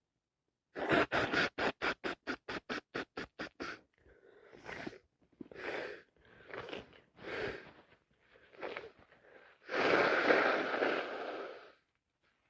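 A person blowing their nose into a tissue: first a quick run of about a dozen short puffs, then several softer breaths, then one long, loud blow lasting about two seconds near the end.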